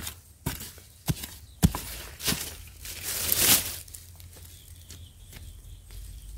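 Small hand spade chopping into dry soil and roots while digging out wild yam tubers: five sharp strikes roughly half a second apart, then a longer scrape through soil and dry leaves about three and a half seconds in.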